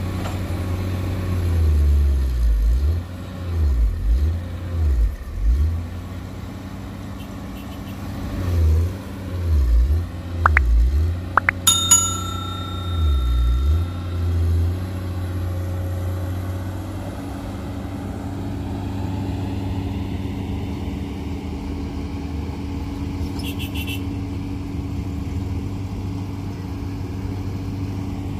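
Komatsu PC210-8 excavator's six-cylinder diesel engine running, its low drone repeatedly dipping and swelling through the first half, then running steadily: a problem the uploader calls engine overload. A few clicks and a bell-like ding come about twelve seconds in.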